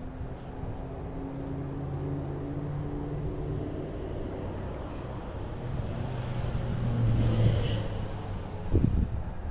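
Street traffic: a motor vehicle engine humming steadily, louder about seven seconds in, over a general outdoor rumble, with a short low thump near the end.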